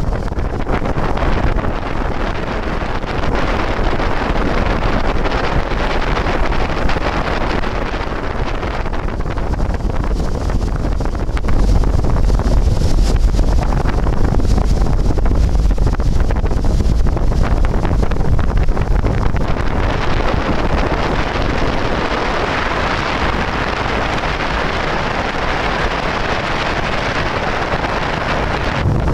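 Meteor-type hydrofoil running on the water: a steady rush of engine and water noise, heavily mixed with wind buffeting the microphone. It grows louder for several seconds midway.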